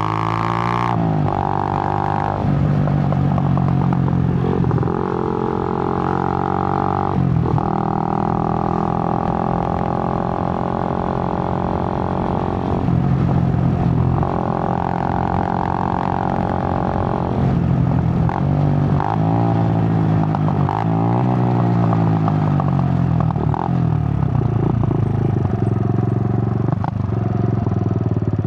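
Suzuki GN125's single-cylinder four-stroke engine under way. It pulls up through the gears with a short dip in pitch at each change, holds steady cruising speeds, then falls and rises several times as the bike slows, settling at a lower, steady pitch near the end.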